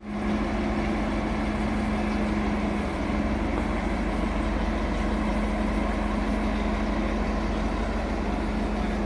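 A heavy engine idling steadily, with a constant tone held over its low rumble.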